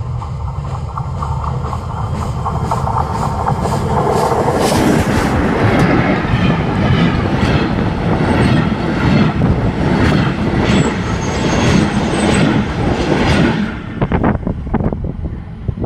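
Historic steam train passing close by with a rhythmic beat. The sound swells over the first few seconds, stays loud, then drops sharply near the end.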